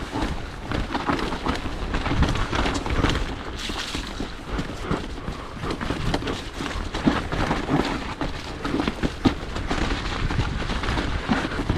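Full-suspension mountain bike descending a wet, muddy trail: a steady low rumble with many sharp knocks and rattles as the tyres and frame hit roots and ruts.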